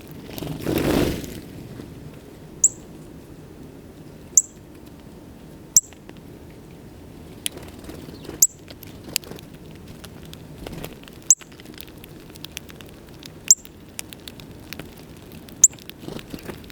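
A songbird's sharp, high chip notes, each a quick downward slide, repeated about seven times a second or two apart. A brief rustle, like wingbeats, comes about a second in, with faint scattered ticks underneath.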